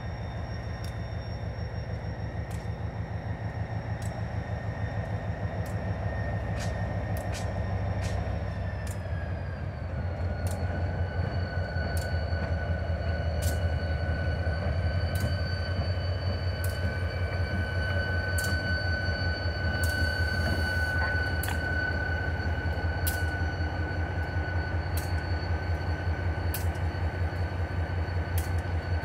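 NYSW 3618 diesel-electric locomotive running light past at close range: a steady pulsing engine throb that grows louder as it nears. A high whine over it drops in pitch about a third of the way in, and sharp clicks come roughly once a second.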